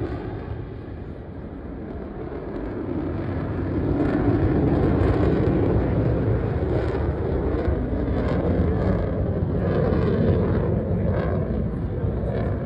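Fighter jet's engine noise as it flies past overhead, a steady rushing sound that eases slightly, then grows louder from about three seconds in and stays loud.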